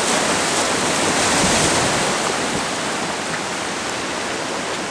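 Ocean surf washing against the shore, a steady rushing noise that is a little louder in the first couple of seconds and then eases slightly.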